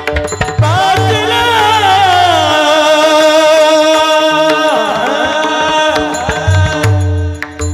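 Varkari kirtan music: a singer draws out a long, gliding, ornamented vocal line without clear words over steady held harmonium notes. A hand drum beats near the start and again near the end.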